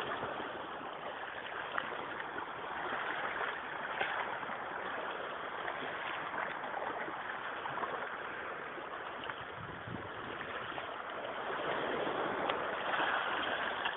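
Shallow sea water lapping and washing over shoreline rocks: a steady wash that swells a little a few seconds in and again near the end.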